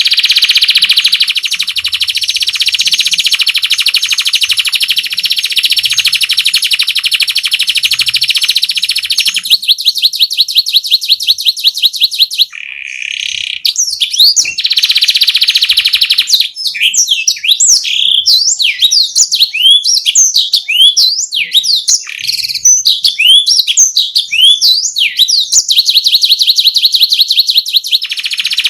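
Domestic canary singing a rolling song. It holds long, fast trills at the start, breaks into quick repeated notes and rapid sweeping chirps in the middle, and returns to a long trill near the end.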